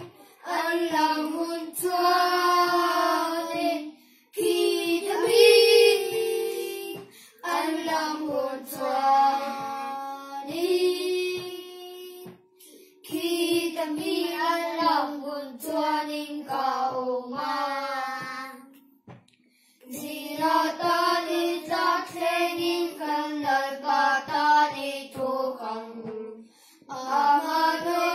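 A small group of children singing a hymn together from their hymnbooks, without accompaniment, in phrases separated by short breaths.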